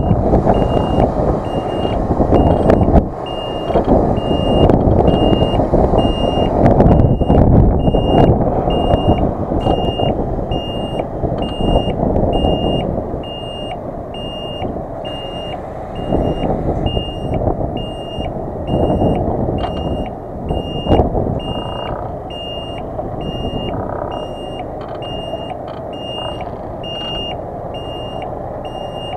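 Reversing alarm on a MAN 26.403 truck beeping steadily, about two high beeps a second, over the loud low rumble of the truck's diesel engine as it backs up; the rumble eases about thirteen seconds in.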